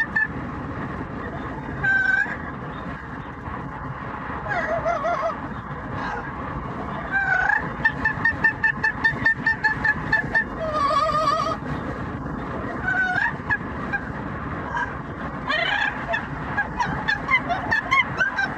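Yellow-naped Amazon parrot calling and squawking in loud, honk-like bursts, with a run of quick repeated high notes about eight seconds in. A steady low road rumble from the moving car lies underneath.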